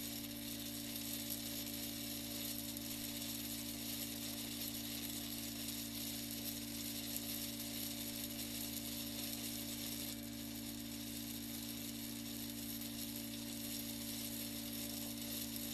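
Heavy rain hissing and pattering on a moving car's windshield and roof, with a steady low hum under it.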